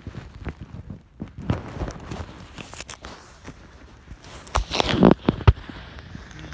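Handling noise: rustling and scattered clicks and knocks as the phone camera is moved against a fabric blanket, with a louder run of knocks about five seconds in.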